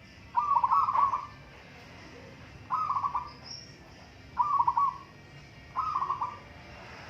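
Zebra dove (perkutut) cooing: four short phrases about one and a half to two seconds apart, each a quick run of notes.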